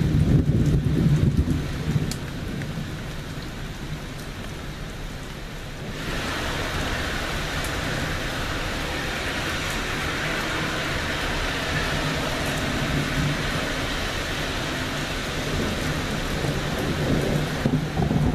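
Thunderstorm: low thunder rumbling over rain, dying away over the first two seconds. Heavy rain comes in abruptly as a steady hiss about six seconds in, and thunder rumbles again near the end.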